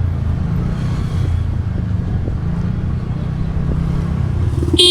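TVS Ntorq 125 scooter's single-cylinder engine running steadily while riding through traffic, a low continuous rumble mixed with road noise. A vehicle horn honks once, briefly and loudly, near the end.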